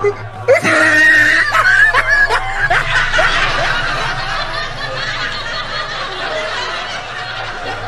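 High-pitched cackling laughter, opening with a sharp cry about half a second in and thinning into a noisy jumble of voices.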